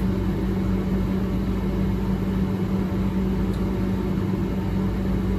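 Steady hum of running lab machinery, with a constant low tone over a low rumble.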